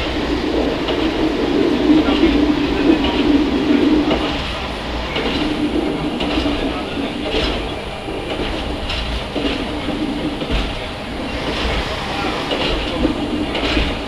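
NOHAB 100 series diesel railcar under way: a steady, fluctuating engine and running drone, with wheels clicking now and then over the rails.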